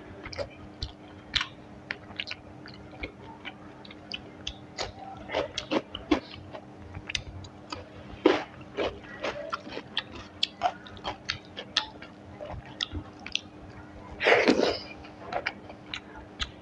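Close-miked chewing of rice with a thin prawn-and-cucumber curry: a run of irregular wet clicks and lip smacks, with one louder noisy mouth sound about fourteen seconds in.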